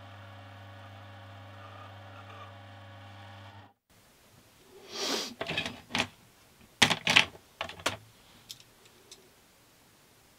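A steady electrical hum with several pitched tones stops abruptly about four seconds in. It is followed by a scatter of sharp clicks and knocks, loudest as a close pair about seven seconds in.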